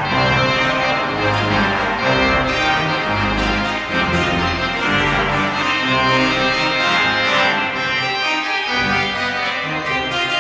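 Church pipe organ playing full sustained chords over low pedal notes, the chords changing about every second; the pedal bass drops out for a moment about eight seconds in.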